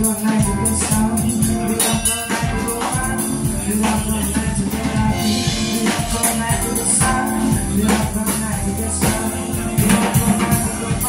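Live band playing a song: keyboard and drum kit keeping a steady beat, with a male vocalist singing into a microphone.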